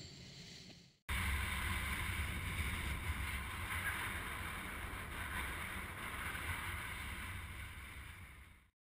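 Wind buffeting the microphone, with a faint steady whine underneath. The sound cuts in about a second in after a brief dropout and fades out just before the end.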